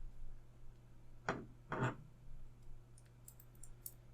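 Light clicks and taps of the small metal parts of a disassembled folding knife being handled: two sharper taps a little over a second in and a run of faint ticks near the end.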